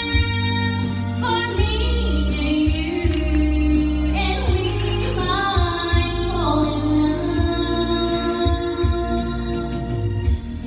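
A woman singing a slow melody into a microphone, holding long notes with gliding pitch, over backing music with a steady bass.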